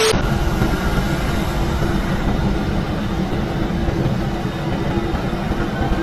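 A split second of TV-static hiss with a steady beep cuts off right at the start. Then comes a steady rumble and hiss with a constant low hum: airport apron noise around a parked airliner.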